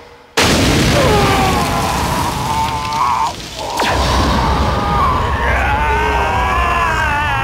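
Animated-fight soundtrack: a deep, continuous rumble with booms, under loud wailing tones that waver in pitch, and a sharp crack a little past halfway, as lightning strikes.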